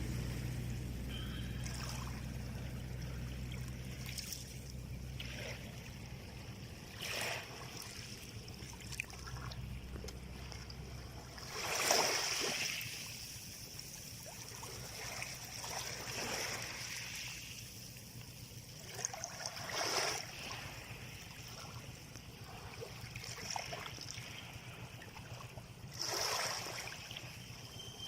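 Small waves washing in and breaking every few seconds, the biggest surge about twelve seconds in. A low steady hum underneath stops at about that point.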